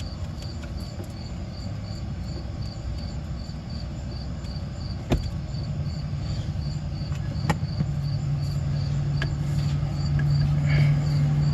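A cricket chirping steadily, about three chirps a second, over a low hum that grows louder in the second half. Two sharp knocks sound as the oil injection pump and its lines are fitted to the snowmobile engine.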